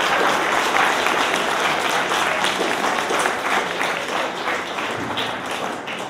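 Applause from many people clapping together, thinning out near the end.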